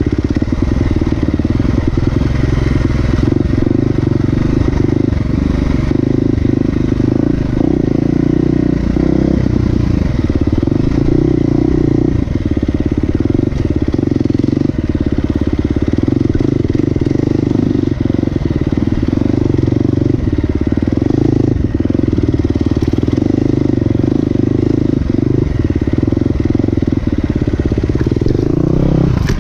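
Motorcycle engine running steadily while the bike is ridden, heard close up.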